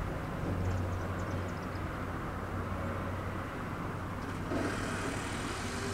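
Motor vehicle noise: a low engine hum that swells and fades over the first few seconds, then a brief rush of noise near the end.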